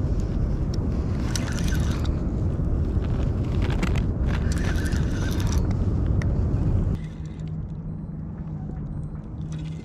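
Wind buffeting the microphone over the rush of a fishing kayak moving across calm water, with a few louder gusts. About seven seconds in it gives way abruptly to a quieter steady low hum.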